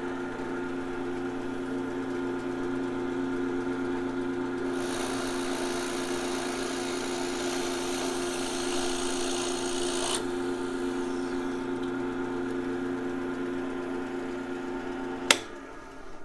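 WEN 5-speed benchtop drill press running quietly with a steady motor hum. From about five seconds in to about ten, the bit bores into mahogany with a high hiss. About fifteen seconds in a sharp click is heard and the motor hum stops.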